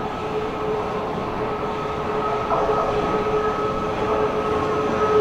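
Stockholm metro (tunnelbana) train running, a steady electric whine over a rumble, growing a little louder about halfway through.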